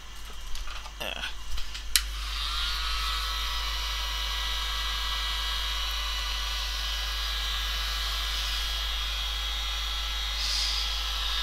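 Heat gun switched on with a click about two seconds in, its fan spinning up and then blowing hot air steadily, heating an iPhone 4S screen to loosen its adhesive bonding strip. A little handling clatter comes before it.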